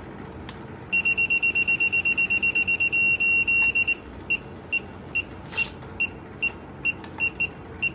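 Radio-control low-battery alarm beeping, a sign that the battery is running low. A single high-pitched tone pulses rapidly for about three seconds starting about a second in, then goes on as short separate beeps, roughly two or three a second.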